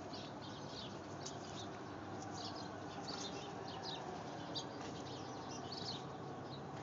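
Small birds chirping repeatedly in quick, short calls, over a steady low background hum.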